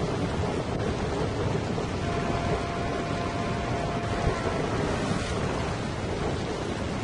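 Steady rushing noise of sea-and-wind ambience, with a faint steady tone for a couple of seconds in the middle.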